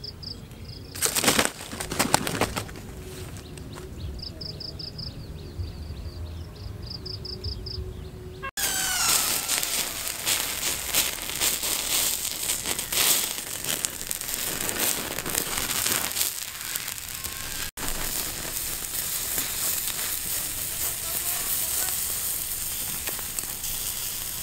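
Insects chirping in short regular pulses, with a burst of a chicken's wings flapping about a second in. After a cut, a wood fire crackles and sizzles under a whole chicken roasting on a spit.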